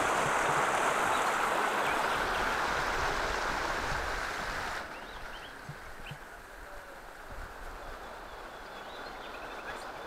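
Water rushing over a small rocky cascade in a river, a steady hiss of white water. About five seconds in it drops suddenly to a softer sound of flowing river water.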